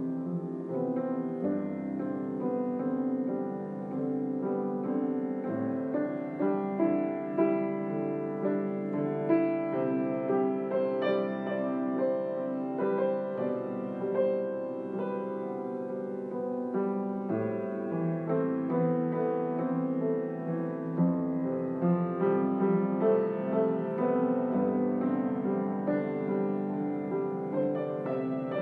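Piano music: a solo piano playing a steady stream of notes, many held so that they ring over one another.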